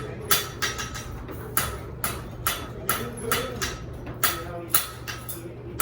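Blacksmith's hammer striking metal on an anvil, about two blows a second in an uneven rhythm, each blow ringing briefly.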